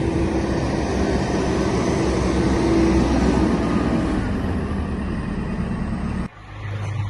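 Motor vehicle engine running under loud, steady noise with a low hum. About six seconds in it cuts off abruptly to a quieter, steady low engine hum.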